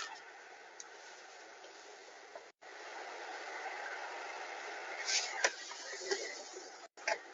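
Steady hiss of a doorbell camera's microphone picking up faint outdoor background, cutting out to complete silence for a moment twice. A few brief soft noises come about five seconds in.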